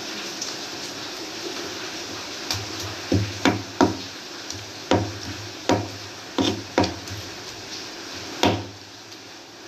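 Stone pestle knocking in a stone mortar (Indonesian ulekan and cobek), about eight sharp, irregular strikes with a short low ring, while pounding and mixing chilies and basil leaves.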